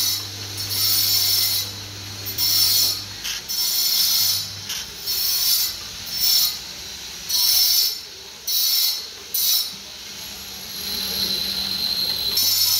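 Foam-in-place packing gun hissing in short bursts, about ten of them in quick succession, as it shoots expanding polyurethane foam. A low steady machine hum sits under the first four seconds or so.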